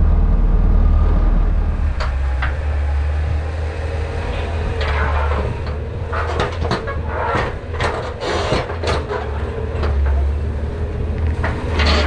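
Bobcat compact track loader pushing snow with a converted Fisher plow blade. A steady low engine drone from inside the cab for about two seconds, then the engine running with clattering tracks and repeated knocks and rattles from the blade and frame as it drives through the snow.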